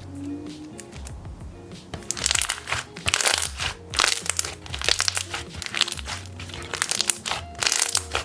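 Thick, glossy slime being squished and stretched by hand, making loud sticky crackling and popping sounds that start about two seconds in, over background music.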